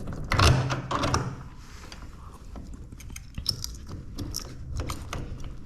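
Irregular metallic clicks and clinks of bolts, nuts and tools being handled, with a louder clatter in the first second.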